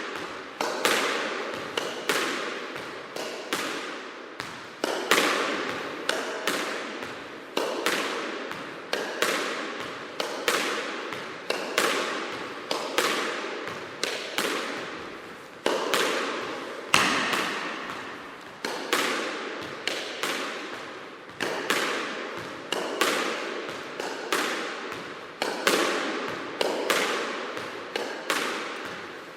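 Racquetball rally: the ball smacks sharply off racquets and court walls in a quick, irregular series of hits, each trailed by a long reverberation. A faint steady tone runs underneath.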